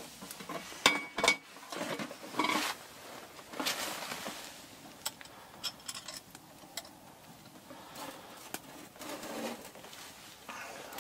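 Cast-iron waffle iron being closed over batter on a wood stove: metal clanks and scrapes as the two halves and their long handles are brought together. The sharpest knock comes about a second in, then lighter knocks follow.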